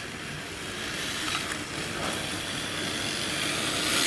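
Electric RC drift car running on asphalt: a hiss of its hard drift tyres sliding over the surface with the whir of its drivetrain, growing steadily louder as the car comes closer.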